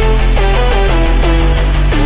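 Electronic dance music: a steady pulsing bass beat under a synth melody of short falling notes, with no singing.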